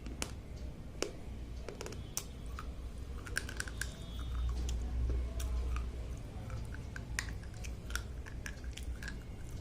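Slate pencils being bitten and chewed: a run of sharp, dry, irregular crunching clicks, several a second.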